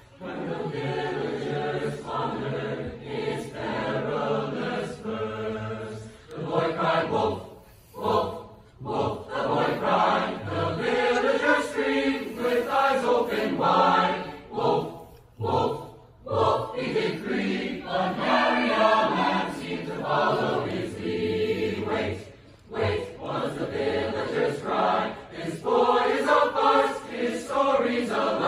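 A choir singing in parts, phrase after phrase, with short breaths between phrases about a quarter and half way through.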